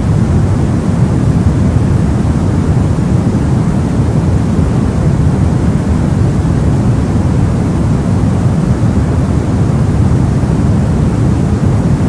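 Steady, loud white noise for soothing a crying baby, weighted toward the low end as a deep, even hiss with no changes.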